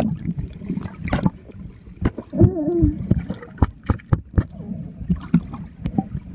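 Muffled underwater sound from a camera held below the surface: water gurgling and moving around the housing, with scattered sharp clicks and knocks. A brief wavering muffled tone comes about two and a half seconds in.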